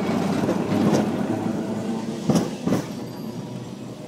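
Street tram passing on its rails, running noise that fades away toward the end, with two sharp clacks of the wheels over the track a little past the middle.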